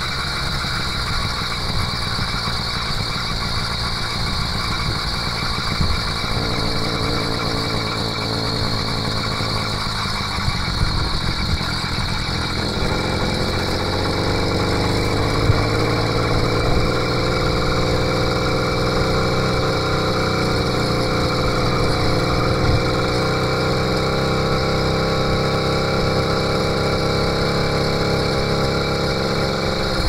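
80cc two-stroke bicycle engine kit running steadily as the motorized bicycle rides along. Its note grows louder and fuller a little before halfway through, as the engine picks up.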